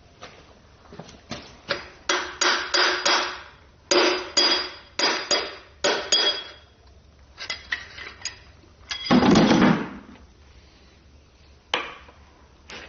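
Hammer blows on metal engine parts: a quick series of ringing taps, a dozen or more in a few seconds, then a louder, rougher sound lasting about a second, and one last knock near the end.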